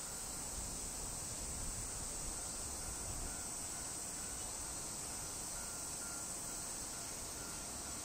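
Steady, high-pitched insect chorus over low background noise.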